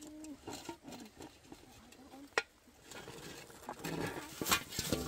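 Knocks and scraping of a metal pan being handled over hot ash: a sharp knock about two and a half seconds in, then a burst of scraping with a louder knock near the end.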